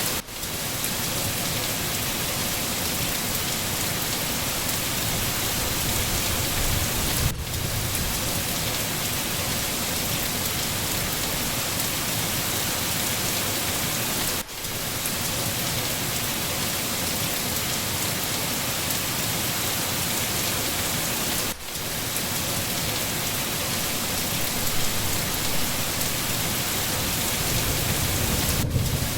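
Steady, dense rainfall hissing evenly. The sound dips for a moment about every seven seconds.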